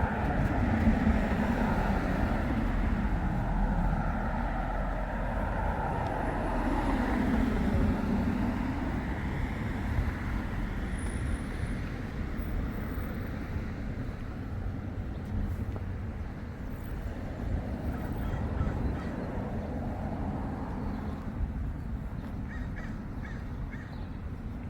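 Outdoor background noise of road traffic going by, with a low rumble that swells twice and slowly dies away.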